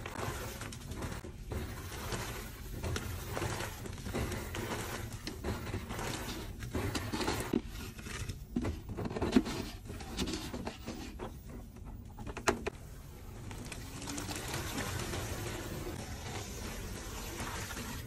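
Water pouring and splashing into the foamy drum of a top-loading washing machine, with a couple of sharp knocks about halfway through.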